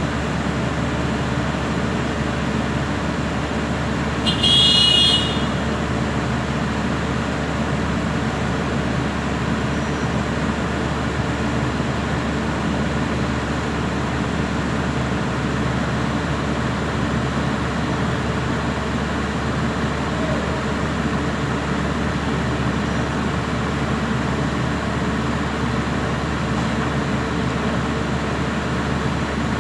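A heavy diesel engine, the Kobelco excavator's, runs steadily. About four seconds in there is one short, high-pitched tone lasting about a second.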